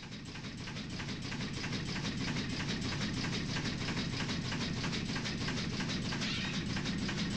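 Steam engine of the 1928 steam launch Otto Lauffer running, a quick, even mechanical clatter over a steady low hum, fading up over the first two seconds.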